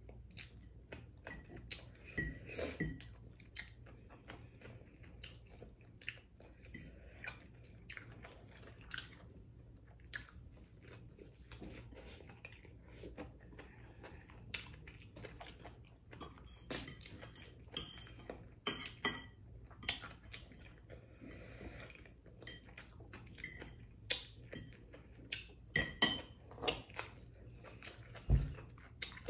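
Close-up chewing and wet mouth sounds of a person eating fried fish, with scattered small clicks and smacks and now and then a fork clinking on a plate.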